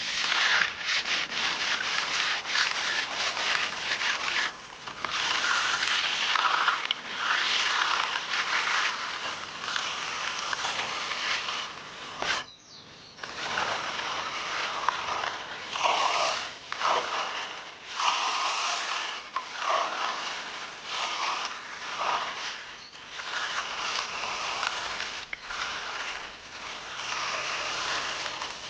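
Repeated rubbing, scraping strokes of a hand finishing tool worked across the surface of fresh, still-soft concrete, each stroke lasting a second or two, with a short pause about halfway through.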